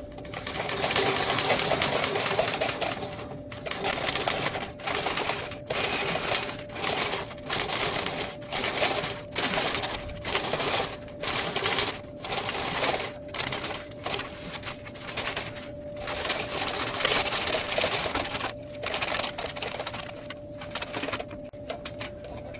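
Steel fish tape rattling and scraping inside a dryer vent duct as it is worked back and forth, in bursts about a second apart, to loosen built-up lint. A running clothes dryer hums steadily underneath.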